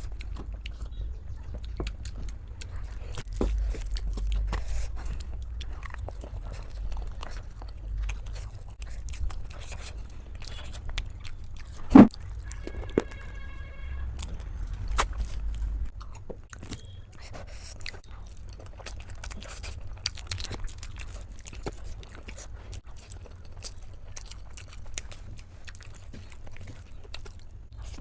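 Close-miked mukbang eating: chewing and biting with many small wet clicks and some crunches, and one loud knock about twelve seconds in.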